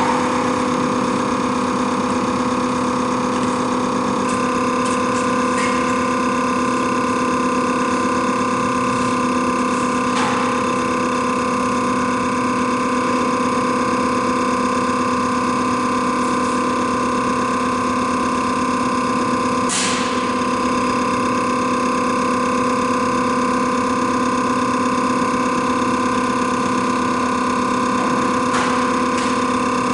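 Common rail test bench running steadily during an injector quantity test at 25 MPa rail pressure: its drive motor and high-pressure pump give an even hum with several held tones. A few sharp clicks cut through, the sharpest about two-thirds of the way in.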